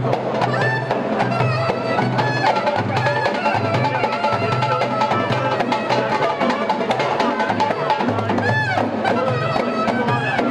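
Turkish street band playing: a clarinet carries a reedy, ornamented melody over a steady darbuka and frame-drum rhythm. About eight seconds in, the clarinet makes a swooping glide.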